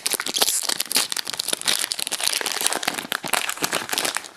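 Foil wrapper of an Upper Deck hockey-card pack crinkling as it is pulled open by hand, a dense run of sharp crackles.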